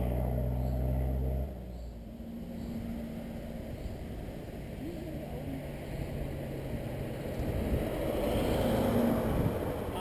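Engine of a historic rally car approaching from a distance up the road, growing louder toward the end. Before that, a steady low hum cuts off abruptly about a second and a half in.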